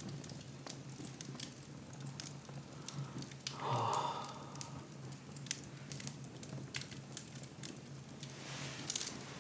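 Wood fire burning in a fireplace, crackling with scattered sharp pops and snaps over a steady low hum. About four seconds in there is one brief, louder rushing sound.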